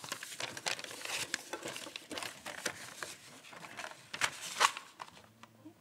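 Papers rustling and clicking as they are handled on a lectern close to its microphone, in an irregular run of small rustles with a couple of sharper clicks about four and a half seconds in, dying away near the end.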